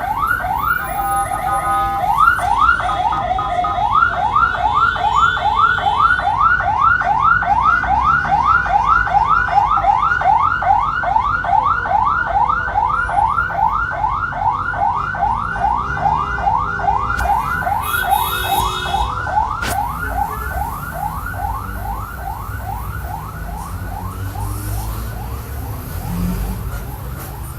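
Electronic siren or alarm repeating fast rising sweeps, about three a second, over the low rumble of a running engine. The sweeps fade over the last several seconds.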